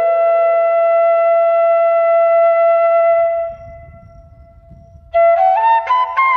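Music: a wind instrument holds one long note for about three and a half seconds, then after a short pause plays a quick melody of short stepping notes.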